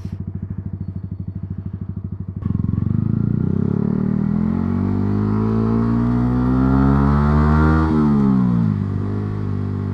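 Yamaha R125's single-cylinder four-stroke engine pulsing at low revs, then about two and a half seconds in the throttle opens and the engine pulls, its note rising steadily. Near eight seconds the pitch drops quickly as the throttle closes, settling to a steady lower note.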